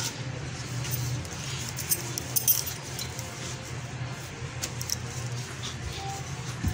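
Dough is pressed flat by hand and then rolled with a wooden rolling pin on a marble countertop. A few light clinks and taps come about two seconds in and again near five seconds, and a knock comes near the end, all over a steady low hum.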